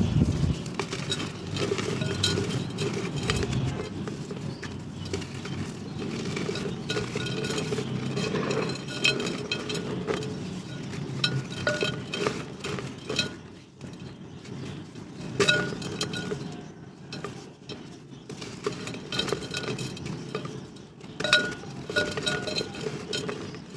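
Dried mud and clay-pot pieces being crushed and crumbled: continuous crunching and crackling, broken by sharp clinks of hard fragments snapping and knocking together.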